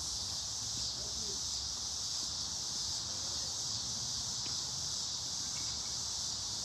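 Steady, high-pitched insect chorus, an unbroken drone with no pauses.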